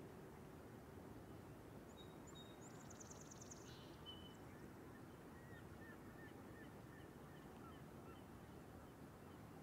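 Faint, near-silent waterside ambience with a steady low rumble. Small birds call faintly: a quick high trill about two seconds in, then a few soft short chirps.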